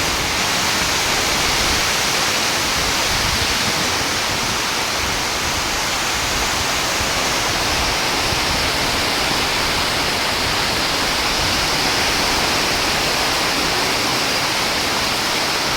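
Cyclonic wind with rain: a steady rushing hiss at an even level throughout, without breaks or distinct gusts.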